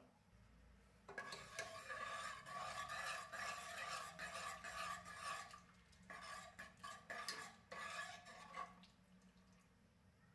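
Steel ladle stirring thick dal in a metal pressure cooker pot, scraping and clinking against the sides and bottom with a metallic ring. The stirring runs in two spells, from about a second in to about six seconds, then again until near nine seconds. A brief click comes right at the start.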